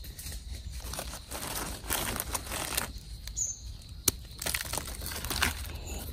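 Dry leaf litter and twigs rustling and crackling in irregular bursts, with a few sharp snaps.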